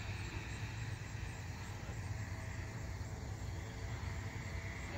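A small engine running steadily with a low drone.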